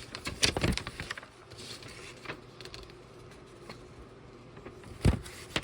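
Plastic building bricks clicking and knocking as a brick-built model is handled. A louder knock comes about five seconds in.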